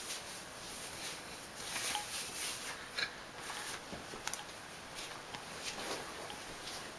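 A baby making a few brief, soft sounds, with light rustling and small clicks over a steady hiss.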